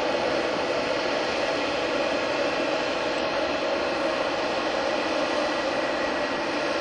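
Airbus A310-304's twin General Electric CF6-80C2 turbofan engines running steadily: an even jet rush with a hum in the middle range that neither rises nor falls.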